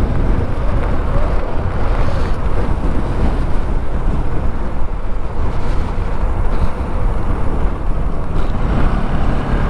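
Motorcycle riding at speed: steady wind rush on the microphone over the bike's engine and road noise.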